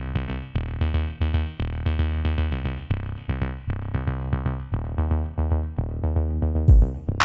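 Electronic background music: synthesizer notes over a steady drum-machine beat, with a heavier kick drum and a bright crash coming in near the end.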